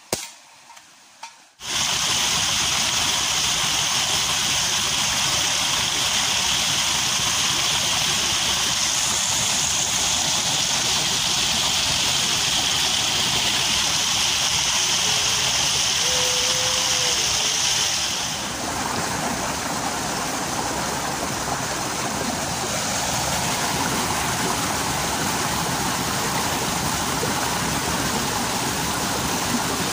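A single sharp crack at the very start. Then, about a second and a half in, a small waterfall's water starts pouring over rocks close to the microphone in a loud, steady rush, which shifts slightly and eases a little about 18 seconds in.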